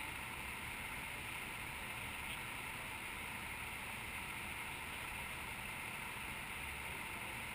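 Steady muffled background noise, a low rumble with a hiss above it, with no distinct events.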